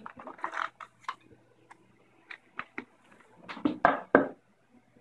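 Cardboard gift-style box being handled: scattered light rustles and taps of the lid and inner tray, with a few louder knocks a little before the end as the lid is set down on the table.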